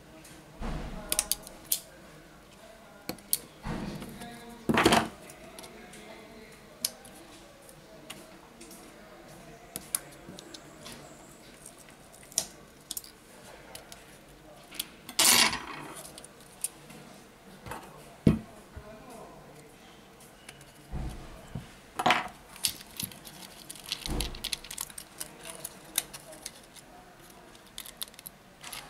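Sparse clicks, taps and scrapes of a Xiaomi Redmi S2 smartphone being taken apart by hand, its small metal and plastic parts and tweezers knocking against each other and the repair mat. Three louder clatters stand out, spread through the stretch.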